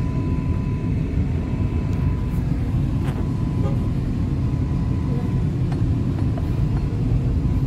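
Steady low rumble of road and engine noise inside the cabin of a moving car, with a faint thin whine in the background.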